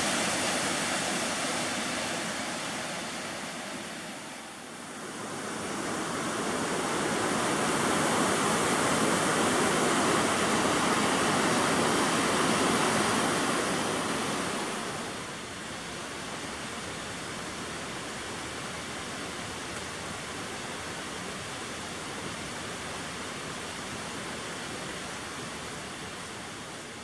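Waterfall pouring down a narrow rock cleft: a steady rush of falling water that dips about four seconds in, swells again, then drops to a quieter steady rush about halfway through.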